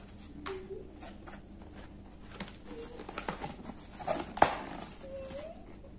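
A cardboard McDonald's burger box being handled and opened: light scattered crinkles and taps, with one sharp snap about four and a half seconds in.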